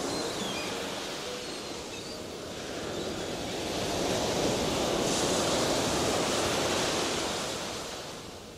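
Sea surf: waves wash and swell to a peak about four to seven seconds in, then the sound fades out toward the end.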